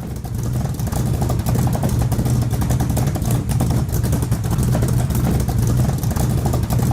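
Welding arc crackling steadily over a low electrical hum while a thin sheet-metal patch panel is welded in.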